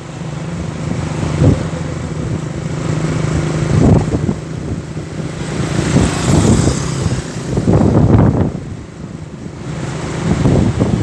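Tour bus engine running as the bus pulls out, its sound swelling and easing several times.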